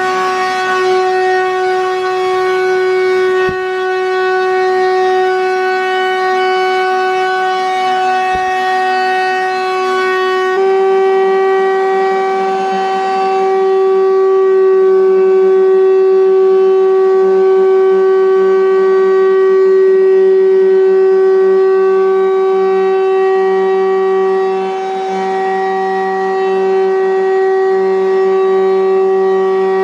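Shop vacuum motor running with a steady whine. Its pitch steps up slightly about ten seconds in.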